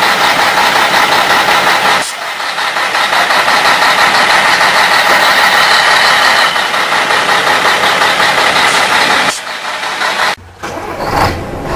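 A truck engine running. The sound changes abruptly about two seconds in and again twice near the end.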